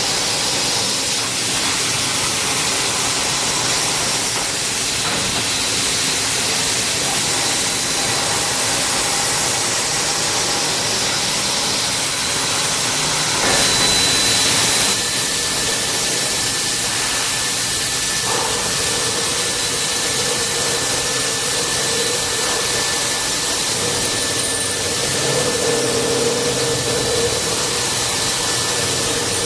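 CNC multi-spindle drilling machine running: a steady, noisy whirr and hiss. A brief louder hiss comes about halfway, and steady whining tones come in near the middle and hold to the end.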